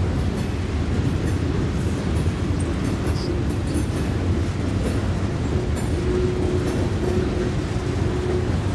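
Freight train of open-top hopper cars rolling past at steady speed: a continuous low rumble of steel wheels on rail with scattered light clicks. A faint steady whine joins in about halfway through.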